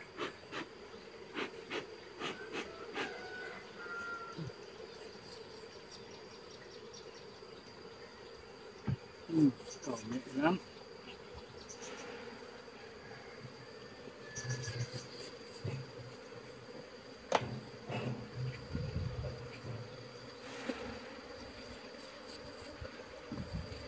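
Honeybees of a crowded, populous colony buzzing in a steady hum over an opened wooden hive, with scattered clicks and knocks as the frames are handled.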